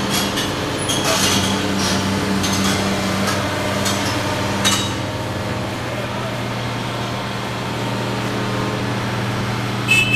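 Excavator's diesel engine running steadily during a building demolition, with clanks and crunches of metal and debris over the first five seconds and a sharp clink near the end.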